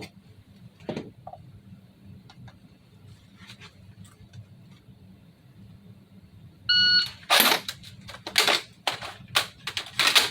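A shot timer's electronic start beep about two-thirds of the way in, then a quick string of sharp mechanical shots, roughly six in three seconds, from a Cybergun FN P90 airsoft gun fired without BBs during a timed drill. Before the beep there are only a few faint handling clicks.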